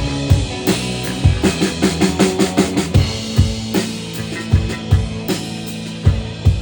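A dream-pop band playing an instrumental passage without vocals, the drum kit to the fore: kick drum and snare hits in a steady beat over sustained low notes.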